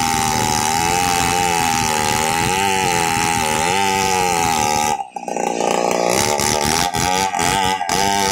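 Petrol chainsaw running at high revs under load, ripping lengthwise through a large acacia log, its engine pitch wavering as the bar bites into the wood. About five seconds in the sound breaks off for a moment, then carries on, with a few brief dips near the end.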